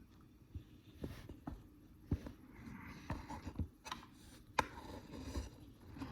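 Handling noise: a handful of irregular light clicks and knocks over a low rumble.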